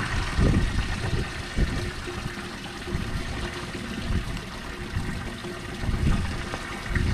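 Water trickling and splashing, with uneven gusts of wind rumbling on the microphone and a faint steady hum underneath.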